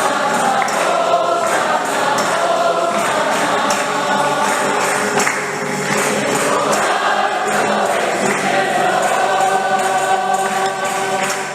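A choir singing a hymn in Spanish over a steady jingling percussion beat, like a tambourine.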